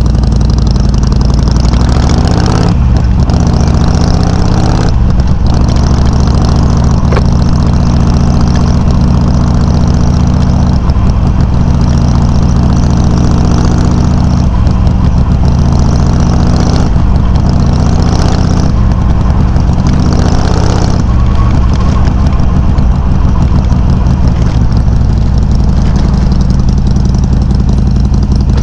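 Harley-Davidson Sportster 883's air-cooled V-twin running loud through aftermarket Customer slip-on mufflers, picked up by a microphone mounted on the bike. The engine note is steady, with brief changes several times.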